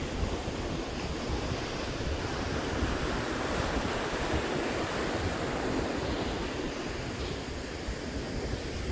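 Ocean surf breaking and washing up a sandy beach, the wash swelling in the middle. Wind buffets the microphone with a gusty low rumble.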